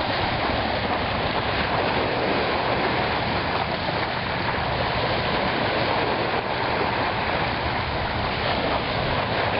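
Small waves washing onto a pebbly shoreline, a steady hiss of water.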